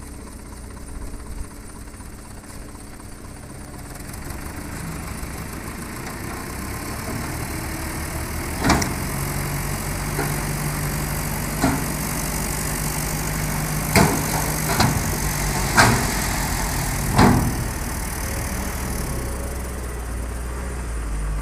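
Mitsubishi Canter dump truck's diesel engine running and rising in speed as it drives the hydraulic hoist to tip up the loaded bed. A handful of sharp clanks sound through the middle of the lift.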